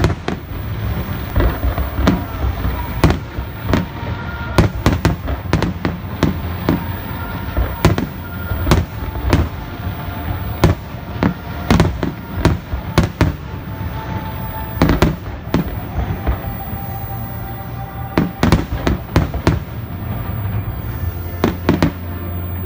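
Aerial fireworks display: shells bursting in a rapid, irregular barrage of sharp bangs over a steady low rumble.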